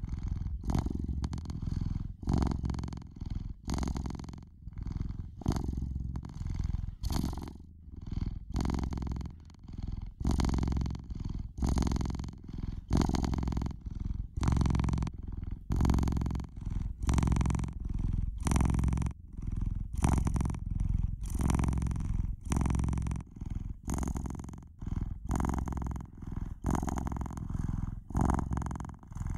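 Domestic cat purring steadily and close, the deep purr swelling and fading in an even rhythm with each breath in and out, a little more than once a second.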